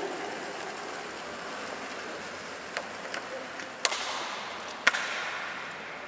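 Steady whirr of bicycle tyres spinning on training rollers, with several sharp clicks, the loudest two about a second apart near the middle.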